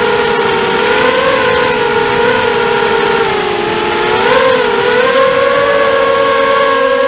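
ZMR250 racing quadcopter's DragonFly 1806 2300kv brushless motors spinning Gemfan 5x3 props: a loud, steady whine whose pitch wavers with the throttle, sagging about three and a half seconds in, rising sharply just after four seconds, then holding a little higher.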